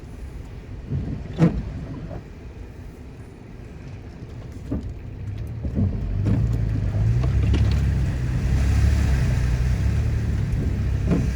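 Toyota FJ Cruiser's V6 engine pulling the truck through a muddy, water-filled stretch of trail. A few knocks come early, then the engine's low drone grows loud from about six seconds in, and a rushing hiss joins it near the end.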